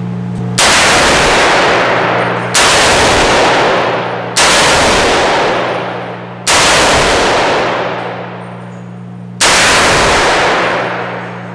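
.300 Blackout AR pistol with a 10.5-inch barrel fired five times, single shots at uneven intervals a second or three apart, each blast ringing out for a second or more. A steady low hum runs underneath.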